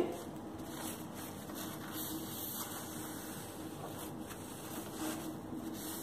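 Faint rustling and rubbing of tissue paper wiping steam-loosened grease from the inside and door of a microwave oven, in short strokes, over a steady low hum.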